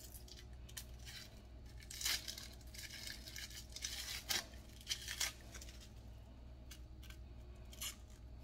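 Dry, papery onion skin crackling and tearing as an onion is trimmed and peeled by hand, in short irregular rustles.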